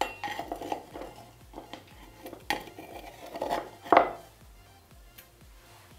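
Metal spoon clinking and knocking against a cooking pot and containers, a few sharp knocks, the loudest about four seconds in, over faint background music.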